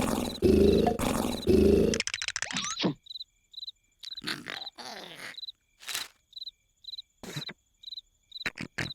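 Loud, rhythmic cartoon snoring, heavy rasping snores that stop about two seconds in. After that, crickets chirp at a steady pace with a few short cartoon sound effects.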